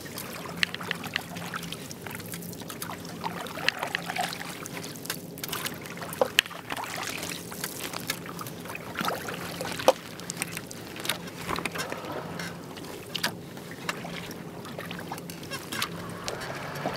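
Double-bladed kayak paddle strokes through calm water: blades dipping and pulling, water trickling and dripping off the blades, with frequent small splashes and a few sharper taps, the loudest about ten seconds in.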